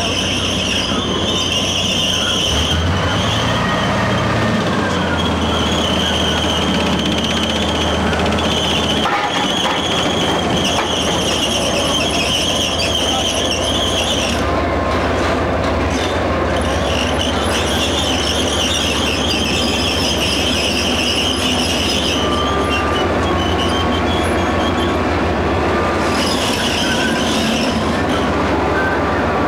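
Tracked armoured vehicle driving slowly: its tracks squeal and clatter in high spells of several seconds that come and go, over the steady run of its engine, which rises briefly a few seconds in.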